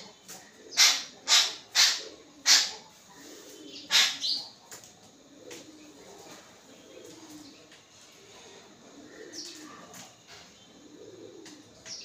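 Babblers calling: about six loud, short, harsh calls in the first four or five seconds, then only faint low sounds until one small call near the end.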